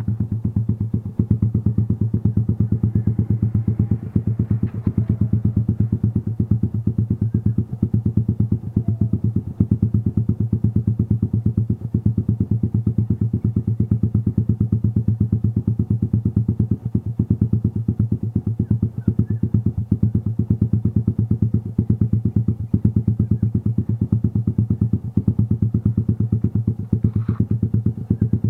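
Modenas MR1 motorcycle's carburetted engine idling steadily while warming up on a cold morning, heard close to its aftermarket EPOWER Black Cobra exhaust. A faint knock or two is heard over it.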